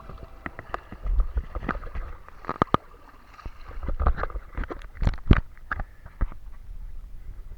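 Kayak paddling on water: irregular splashes and drips as the paddle blades enter and leave the water, over a low rumble.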